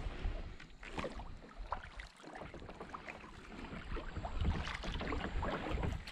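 Kayak paddle dipping and splashing, with water trickling and dripping in irregular small splashes. Wind gusts buffet the microphone in a low rumble.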